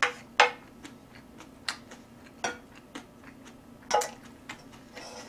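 Chopsticks clicking and tapping against a black frying pan while food is picked from it: a dozen or so sharp clicks at irregular intervals, each with a short ring.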